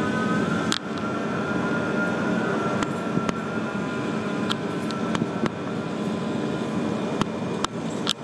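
Steady city background din, a low hum of traffic and machinery, with a faint steady whine and a few sharp clicks scattered through it.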